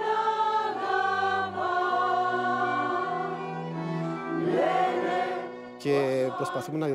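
Mixed choir of women and men singing slow, held chords together.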